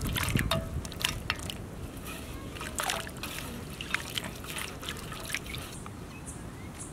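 Water splashing and trickling in a shallow stainless-steel plate as green beans drop in and are swished by hand, loudest in the first second, then scattered small splashes and drips.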